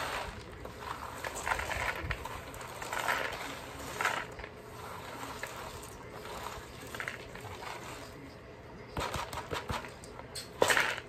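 Peanuts and loose shells rustling and rattling in a woven bamboo winnowing tray as they are worked to separate off the husks. The rustles come in short bursts every second or two, with a run of sharper, louder rattles near the end.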